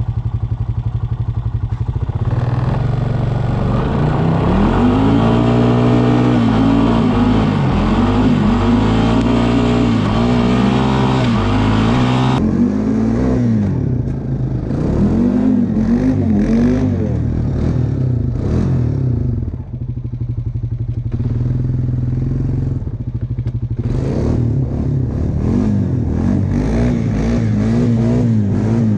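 Four-wheeler (ATV) engine revving up and down over and over as it is driven through deep snow. The pitch rises and falls about every second or two.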